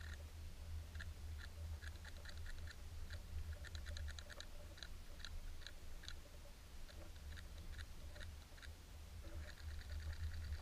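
Underwater sound: a low, steady water rumble with irregular runs of quick, sharp clicks that crowd together around the middle and thin out later.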